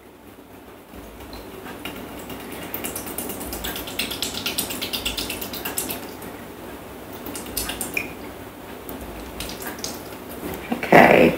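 Dark soy sauce poured slowly from a glass bottle into a Thermomix's stainless steel mixing bowl: a thin trickling stream that grows louder over the first few seconds. A brief louder sound comes near the end.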